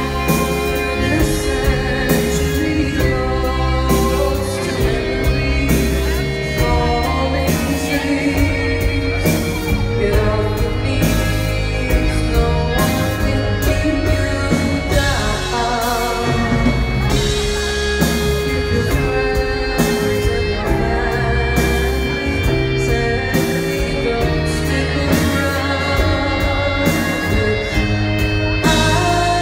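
Live band music with a woman singing lead, over strong, steady bass and sustained instrumental notes.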